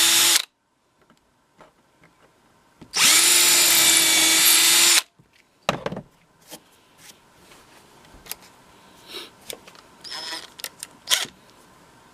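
Power drill driving small screws through a scrap-plywood stop block into a 2x4: a run that stops just after the start, then a second steady run of about two seconds about three seconds in. Light clicks and knocks of handling the wood follow.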